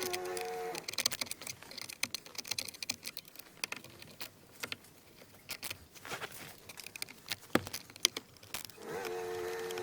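Plastic steering-column trim cover being handled and fitted: a run of small clicks, taps and rattles with a few sharper knocks. A steady humming tone stops about a second in and comes back near the end.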